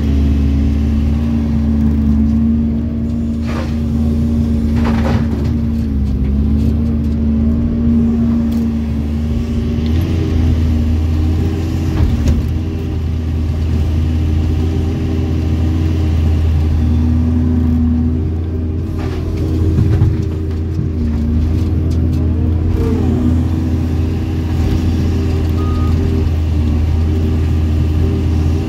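Doosan hydraulic excavator's diesel engine running steadily, heard from inside the cab, its pitch dipping and shifting a few times as the hydraulics take load while the bucket digs rocky soil. A few short knocks and scrapes of the bucket on rock.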